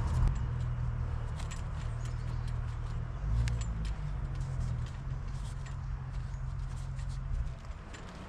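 A low, steady machine hum with scattered light clicks and taps over it; the hum drops off near the end.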